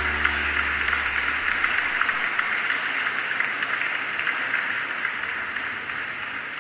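Audience applauding at the end of a live song, with the band's last low note dying away in the first couple of seconds. The clapping slowly fades.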